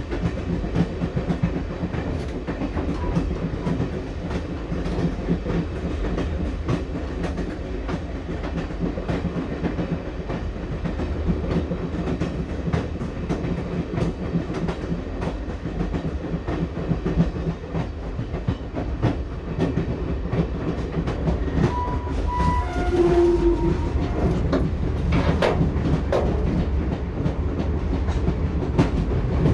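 Passenger train wheels clattering over the rail joints, the clicks coming again and again over a steady low rumble of the carriage in motion. A few short tones sound about three quarters of the way through.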